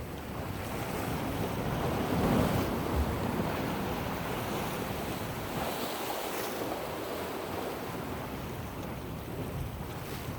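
Ocean surf washing, with wind buffeting the microphone; a wave swells loudest about two seconds in.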